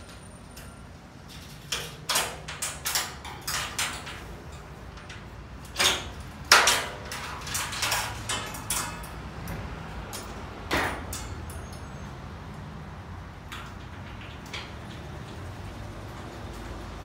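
A portable folding shelving unit being unfolded and its shelves set in place: a run of knocks, clicks and rattles, thickest in the first half with the loudest knock about six and a half seconds in, then only a few scattered clicks.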